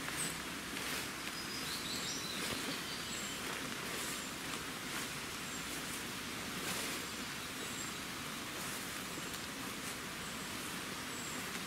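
Woodland ambience: footsteps brushing through dense wet ground plants, with a small bird's short high calls repeating throughout and a brief burst of birdsong about two seconds in.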